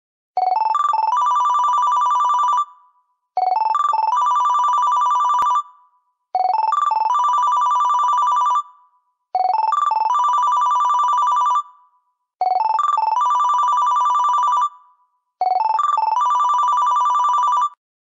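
Digital phone ringtone ringing six times, about three seconds apart. Each ring opens with a few quick beeps climbing in pitch, then becomes a fast electronic warble between two close pitches lasting about two seconds.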